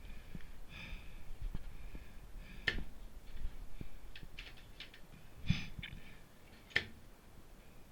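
Faint rustling and scuffing of movement, broken by a thump and two sharp clicks, one about three seconds in and one near the end.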